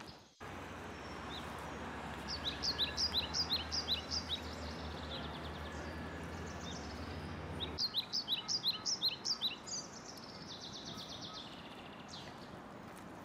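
A songbird sings two quick runs of short, falling chirps, each lasting about two seconds, over steady outdoor background noise. A low hum in the background stops about two-thirds of the way through.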